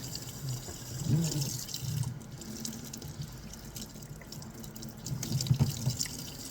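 Sink faucet running, with water splashing and dripping.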